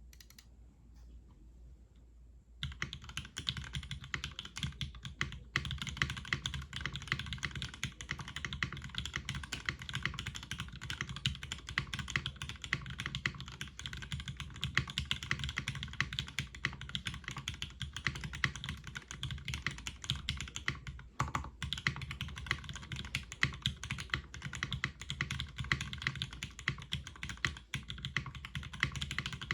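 Mechanical keyboard being typed on steadily and fast, starting about two and a half seconds in, with a couple of brief pauses. It is a zekk.works Ogre with retooled Cherry MX Black linear switches on an aluminium full plate, with GMK keycaps.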